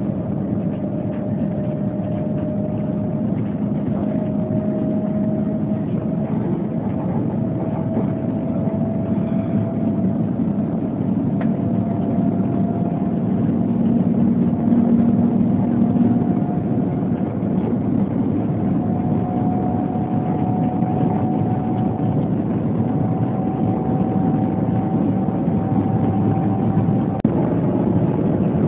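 Cabin noise inside the Shanghai Transrapid maglev train as it accelerates: a steady running hum with a thin whine that rises slowly in pitch as the train gathers speed. The whine stops shortly before the end.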